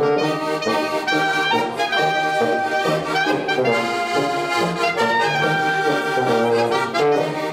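Live traditional alpine folk music from a small band: diatonic button accordion, clarinet and tuba playing a lively tune over a steady bass line.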